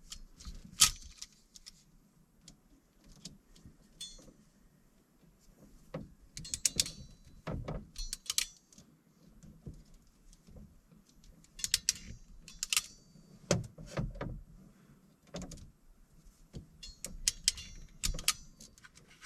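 Intermittent small metallic clicks and jingling rattles, in short clusters with quiet gaps between: hand tools and wire ends being handled while wiring up a charge controller.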